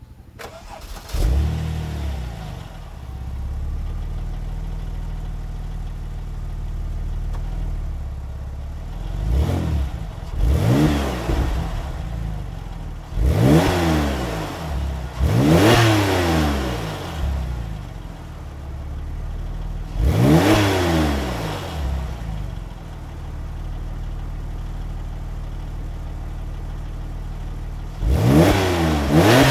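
Porsche 911 Turbo (996) twin-turbo flat-six through a Remus aftermarket exhaust, filmed at the tailpipes. It fires about a second in, flares and settles to a steady idle, then is blipped about six times with quick rev rises that fall straight back to idle.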